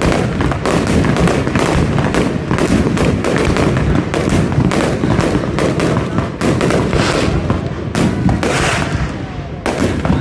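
Aerial fireworks going off in a rapid barrage: a dense string of bangs, several a second.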